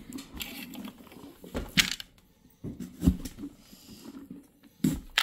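Hand scooping and scraping inside a hollowed-out pumpkin, with three sharp knocks spread through it.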